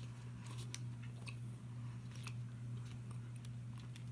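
Mouth chewing Skittles fruit candy: soft scattered clicks and smacks, over a steady low hum.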